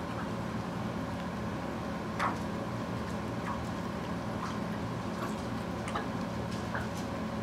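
Australian Shepherd puppy lapping at water in a plastic bowl: a handful of short, irregular wet clicks over a steady low hum, the most distinct about two seconds in. The dog cannot drink properly, a throat problem her owner is seeking surgery for.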